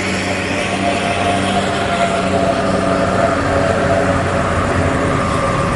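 Intercity bus engine running close by, a loud, steady drone.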